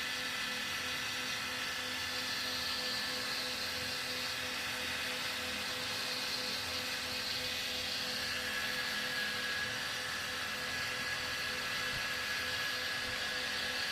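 Arum manis (cotton candy) machine running with a steady whir, its motor spinning the head at a constant speed, together with a steady hiss.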